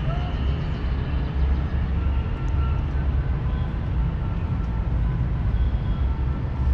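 Steady low rumble of city traffic, with a few faint thin tones above it.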